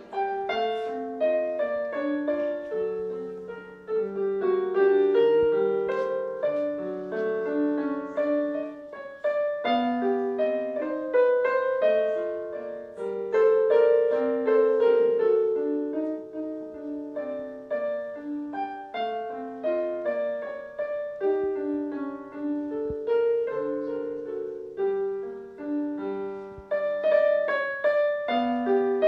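Solo piece played on a Casio Privia digital piano: a melody over overlapping held chords, beginning right at the start.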